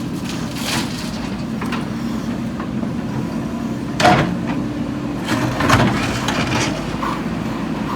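JCB 3DX backhoe loader's diesel engine running steadily under working load, with a sharp clank about four seconds in and a short run of knocks and rattles near six seconds as the machine works the soil.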